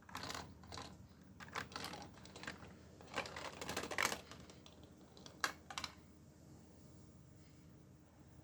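Lego plastic pieces clicking and rattling as they are handled, in scattered runs of small clicks, with a dense clatter about three seconds in and two sharp snaps a little later.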